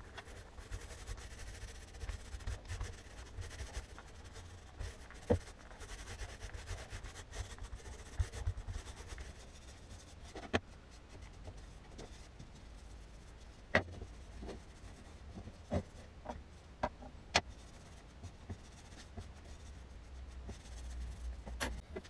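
Small paint roller rolling paint over MDF and wooden strips: a soft, steady rubbing, broken by a few sharp knocks on the workbench.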